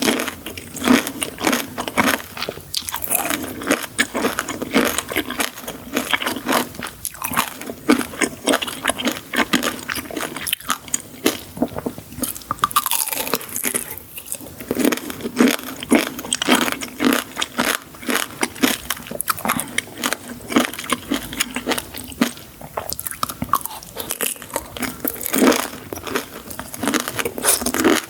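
Crunchy sweets being bitten and chewed, with dense, rapid crackles and crunches throughout.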